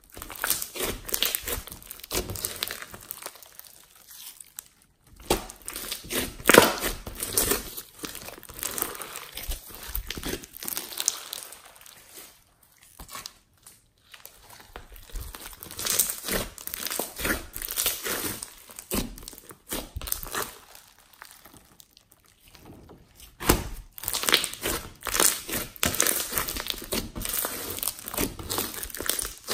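Hands squeezing, stretching and folding a thick, sticky slime full of foam beads, giving dense crackling and popping as air pockets burst. It comes in bouts, with short lulls about 5, 13 and 22 seconds in.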